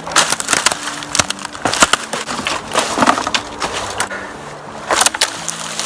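An irregular run of sharp cracks and snaps of wood.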